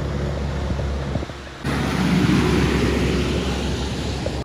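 Diesel truck engine running steadily. About one and a half seconds in it switches abruptly to a louder hiss of a tanker truck's tyres running through water on a wet highway, with the engine rumbling underneath.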